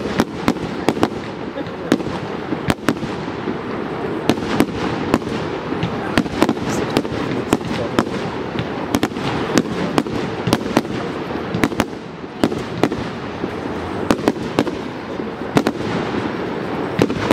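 Aerial fireworks display: shells launching and bursting in a rapid, irregular string of sharp bangs, several a second, over a continuous rumble.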